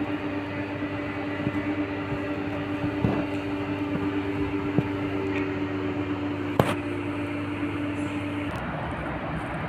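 SM 488 electric multiple unit standing at the platform, its equipment giving a steady hum with a fixed tone and a few sharp knocks. The hum cuts off about eight and a half seconds in.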